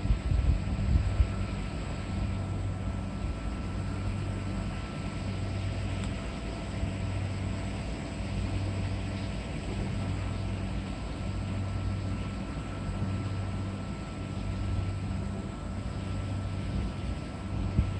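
Steady low drone of a distant engine, swelling and fading slowly, with a brief rumble of wind on the microphone in the first second or so.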